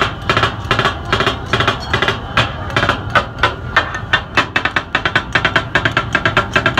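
Katakat: two metal blades striking and chopping on a large flat griddle. It makes a fast, rhythmic run of metallic clanks, about four a second at first and quicker in the second half.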